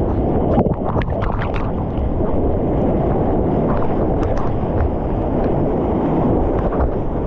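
Whitewater churning and splashing right against a water-level camera on a bodyboard, with wind buffeting the microphone. A cluster of sharp splashes comes about a second in.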